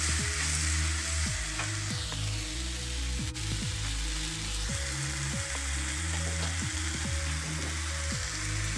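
Chopped onions sizzling steadily as they fry in oil in a wok, stirred and turned with a plastic spatula. Background music with low, stepping notes plays underneath.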